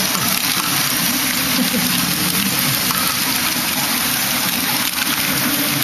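Steady whir and rattle of running LEGO Technic Great Ball Contraption modules (motor-driven wheel and screw lifts moving small plastic balls), over a murmur of voices in the hall.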